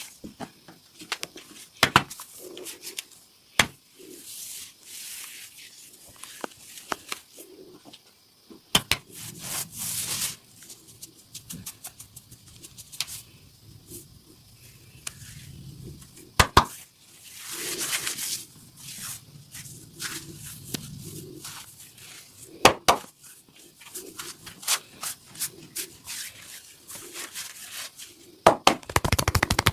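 Massage sounds of hands working on skin: scattered sharp slaps and pats, stretches of rubbing, and a fast run of rapid chopping taps near the end.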